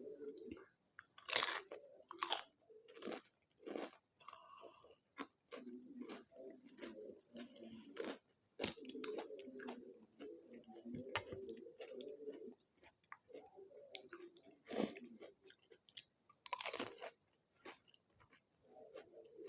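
Crisp fried panipuri puris being bitten and chewed close to the microphone: sharp crunches, a few of them much louder, with steady chewing between.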